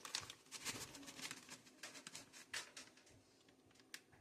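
Faint rustling and light clicks of shredded Swiss cheese being poured in and handled, thinning out after about two and a half seconds.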